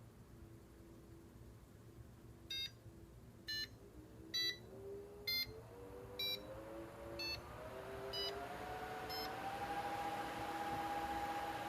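Windamp AF1010 bladeless fan: its control panel beeps eight times, about once a second, while the motor's whine rises in steps to a steady higher pitch and the rush of air grows louder as the fan speeds up.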